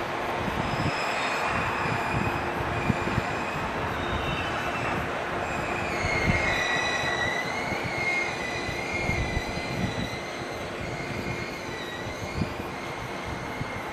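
Empty Taki 1000 oil tank cars of a freight train rolling past on the switchback siding, their wheels squealing in wavering high tones over a rumble with frequent low clanks from the wheels and couplings.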